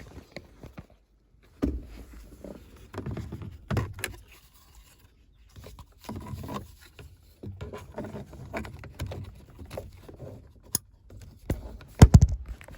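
Plastic dash trim being worked back into place by hand: irregular knocks, clicks and scraping of the panel and its clips and connector, with a loud knock near the end.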